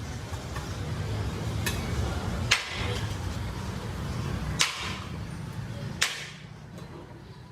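Four sharp metal knocks a second or two apart, a utensil striking a large cooking pot, over a steady low hum that fades after the last knock.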